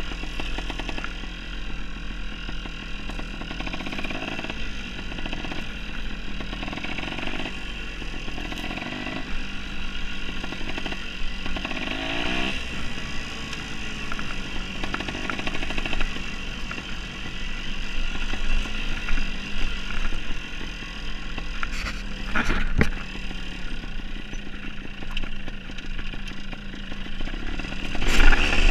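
Dirt bike engine running at low speed, revving up and down repeatedly over rocky ground. Sharp knocks come about two-thirds of the way through, and the loudest clatter comes near the end.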